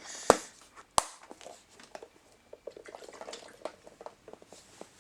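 A small container of CLR chrome-stripping solution being handled: two sharp knocks about a third of a second and a second in, then a run of small light clicks and faint liquid sounds.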